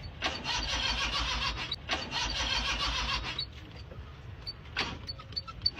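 Old car's starter motor cranking the engine in two bursts of about a second and a half each, with a short break between and an even chugging pulse under the starter noise. The engine does not catch: a hard cold start. A few faint clicks follow.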